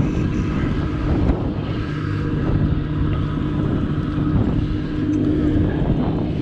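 Steady low drone of a motorboat engine offshore, under rough wind noise on the microphone.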